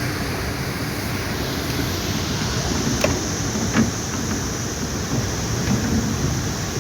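Steady rushing of water and wind, with a couple of faint knocks about three and four seconds in.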